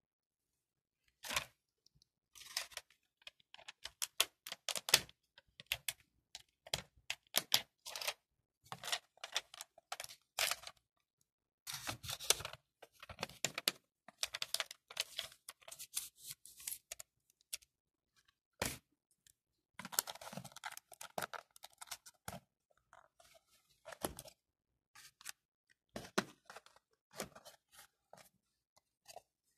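Hands handling a Samsung Galaxy A12 phone box and its cardboard and paper packaging: irregular rustling, crinkling and tapping in quick runs with short pauses.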